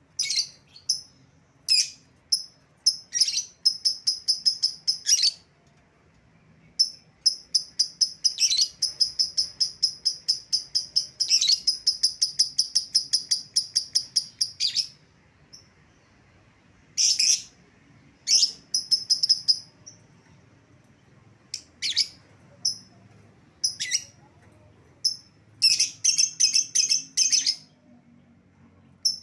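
Lovebird chattering in the long 'ngekek panjang' style: runs of rapid, high-pitched repeated chirps lasting several seconds, broken by short pauses and sharp single calls.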